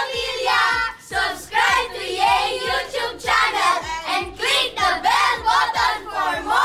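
A group of children singing together over music with a steady beat.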